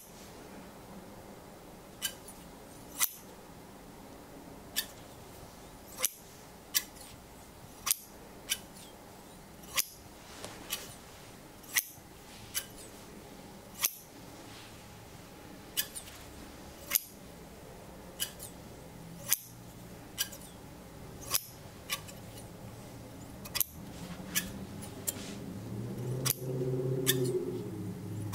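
Shears snipping in the air close to the microphone, one sharp snip about every second at an uneven pace, during an ASMR cord-cutting. A low hum comes in near the end.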